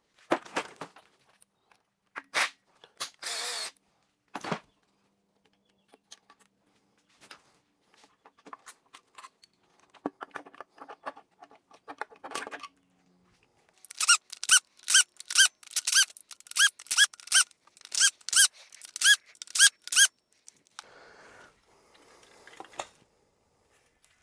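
Hand-tool work on a torn-down engine: scattered metal clinks and clanks, then a run of about a dozen evenly spaced squeaky strokes, about two a second, as a tight fastener is worked.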